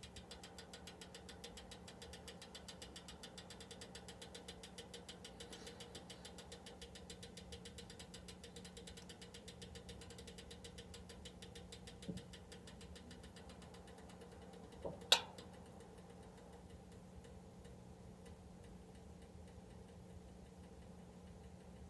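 嘉儀 (HELLER) electric heater making an abnormal noise: a rapid, fast ticking over a steady low hum. A small click comes about twelve seconds in and a sharper click, the loudest sound, about fifteen seconds in, after which the ticking is fainter.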